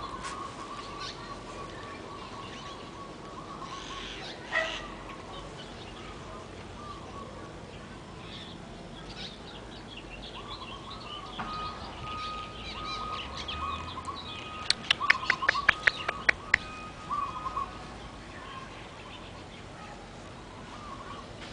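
Small birds chirping and calling in the background, with a steady high tone that comes and goes. A quick run of sharp clicks, the loudest sound, comes about fifteen seconds in.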